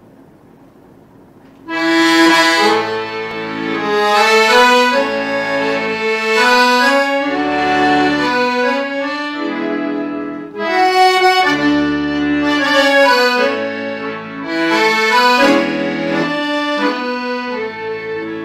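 Instrumental music, a melody over held chords, starting about two seconds in after a faint hiss.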